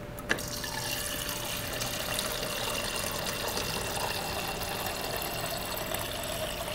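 Maytag refrigerator's door water dispenser running a steady stream of water into a plastic shaker cup, with a faint steady hum under it. A click right at the start as the flow begins.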